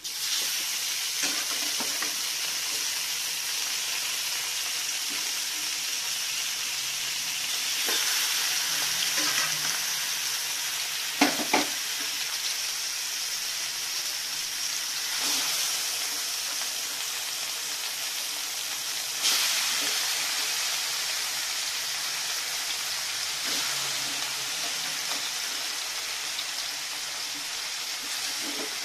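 Marinated pork and pork liver sizzling in hot oil in a metal wok. The frying starts suddenly as the meat goes in and swells a few times as more is added and stirred. Two sharp knocks about eleven seconds in.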